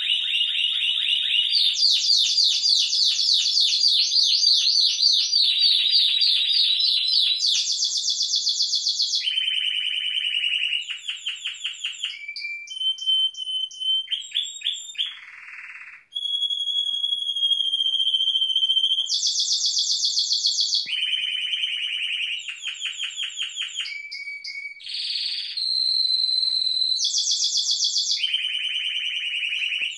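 Timbrado Español canaries singing: a continuous run of rapid trills that change pitch from phrase to phrase, broken by long held whistled notes, with a brief break about sixteen seconds in.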